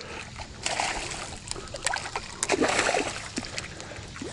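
Hooked bass splashing in shallow water as it is fought toward the bank, a run of sharp splashes through the middle.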